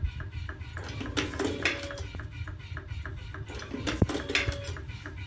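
Electric slim-cigarette rolling machine running, its mechanism making a fast, even clicking with a few louder clattering strokes.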